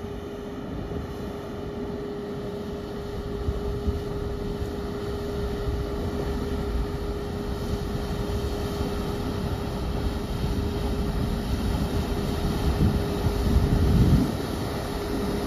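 Cruise ferry Silja Serenade passing close by, its machinery giving a steady low rumble with a constant hum. The rumble grows louder as the ship draws near, with uneven louder surges near the end.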